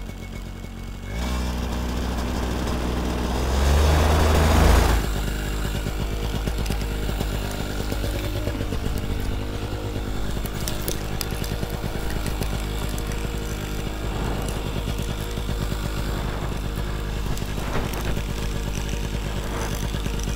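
Paramotor engine starting about a second in and revving briefly, with a loud rush of propeller wind, then running steadily at a lower speed.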